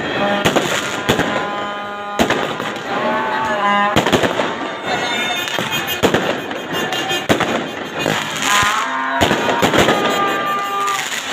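Fireworks and firecrackers going off over a crowd: many sharp bangs at irregular intervals, with crackling between them and people's voices throughout.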